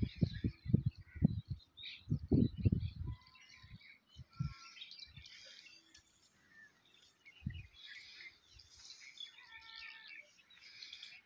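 Several birds chirping and calling, in short irregular phrases throughout. Bursts of low rumbling buffet the microphone during the first three seconds and once more about seven seconds in.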